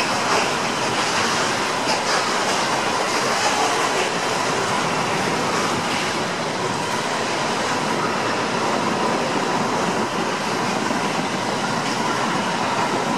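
Freight train of container flat wagons loaded with tank containers rolling past at speed: a steady rush of steel wheels on rail, with a few faint clicks over rail joints in the first seconds and a faint steady whine.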